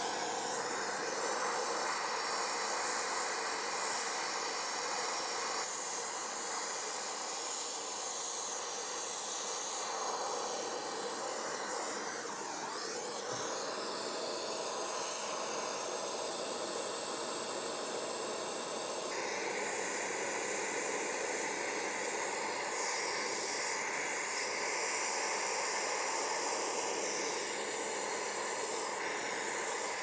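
Oxy-acetylene torch flame hissing steadily while brazing a copper refrigerant line joint. The hiss shifts in tone about two-thirds of the way through.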